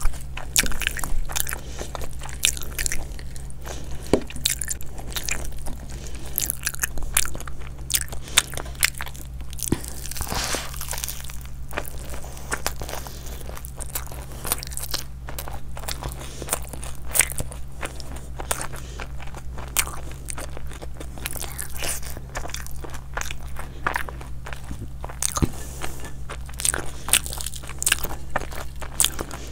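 Close-up chewing and biting of crunchy food: many irregular crisp crunches and mouth sounds, over a low steady hum.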